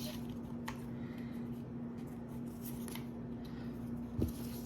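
Faint rustling and small clicks of a paper packet and manual being handled, over a steady low hum, with a soft thump near the end.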